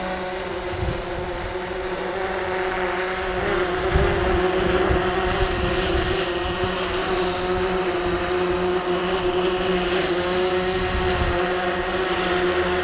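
Propellers of a DJI Mavic 2 Pro quadcopter drone humming at a steady pitch in flight, with wind rumbling on the microphone.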